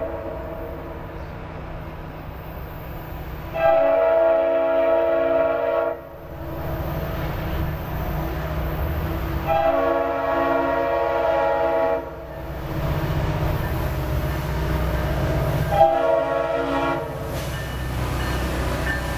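Air horn of an approaching Norfolk Southern SD60E diesel locomotive: a blast ending right at the start, then two long blasts and one shorter one, in the pattern sounded for a grade crossing. The rumble of the diesel engines builds under the horn as the train draws close.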